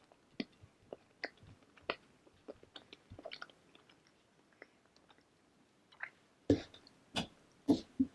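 Close-miked chewing of bread: short wet mouth clicks about twice a second, growing louder in the last couple of seconds.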